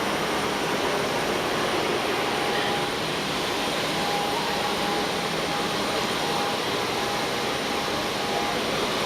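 Airliner jet engine running steadily: a constant rushing roar with a thin, steady whine over it.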